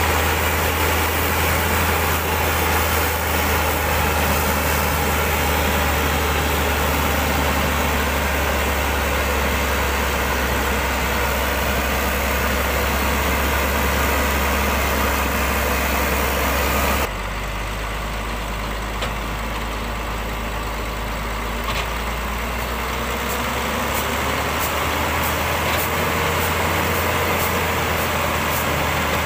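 Heavy Hyundai six-cylinder truck's diesel engine running steadily with a loud low drone. About two-thirds of the way through, the sound drops suddenly to a quieter, lower engine note.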